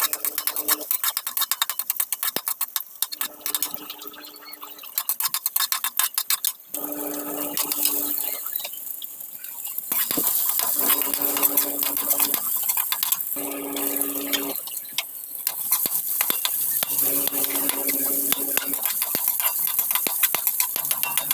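Metal spatula scraping and tapping against a wok while stir-frying garlic, onion and ginger in oil: a dense run of quick scrapes and clicks over a light sizzle. A steady pitched hum comes and goes in short stretches.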